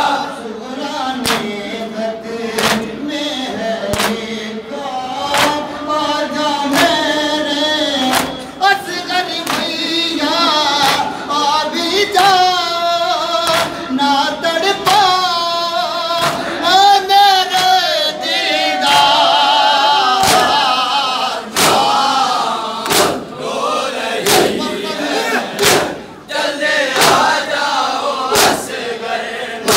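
A male reciter singing a noha, a Shia lament, through a microphone, with a group of mourners singing along. Rhythmic matam chest-beating slaps land about once every 1.3 seconds.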